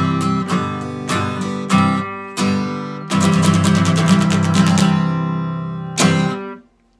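Acoustic guitar strumming the song's closing chords: single strums, then a rapid run of strums, then one last chord that is cut off abruptly.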